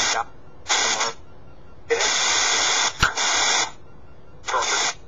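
Sono X10 spirit box app on a phone scanning, playing choppy bursts of radio-like static through the phone's speaker. The bursts start and stop abruptly, about four of them, from a fraction of a second to nearly two seconds long, with a sharp click about three seconds in.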